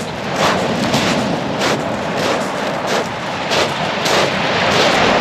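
Footsteps crunching on shingle, a sharp crunch about every half second to second at walking pace, over a steady rush of surf and wind.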